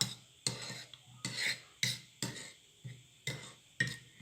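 A metal spoon stirring and clinking against a pot or glass, about two sharp clinks a second.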